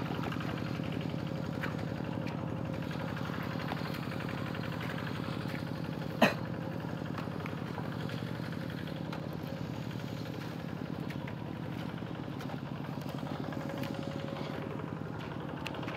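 Two-wheel walk-behind hand tractor's engine running steadily while ploughing a flooded rice paddy. A single sharp click sounds about six seconds in.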